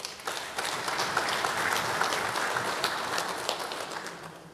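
Audience applauding, swelling quickly and then dying away near the end.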